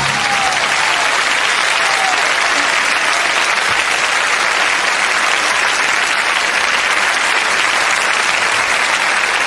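A large concert-hall audience applauding, a steady dense clapping that holds without a break.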